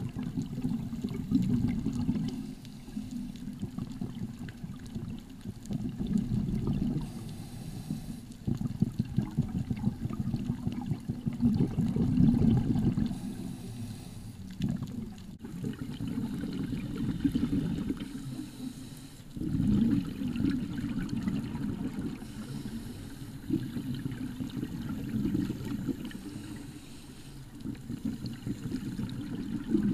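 Muffled underwater rushing and bubbling of scuba divers' exhaled bubbles and moving water, swelling and easing every four or five seconds.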